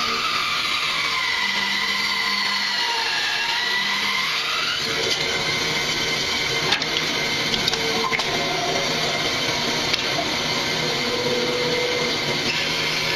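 Bandsaw running and cutting a curve through a thick block of wood, a steady whirr with a whine that slides up and down in pitch over the first few seconds. A few light clicks in the middle.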